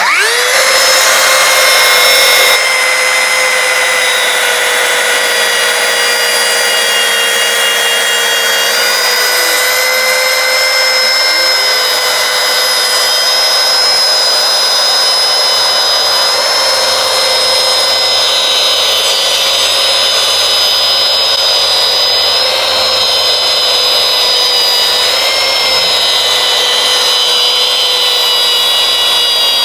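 Metabo KT 18 LTX 66 BL cordless plunge saw running along its guide rail, cutting straight through a tongue-and-groove softwood door board, with a cordless dust extractor running on its hose alongside. A steady high motor whine that starts abruptly and holds throughout, its pitch dipping briefly a few times under load.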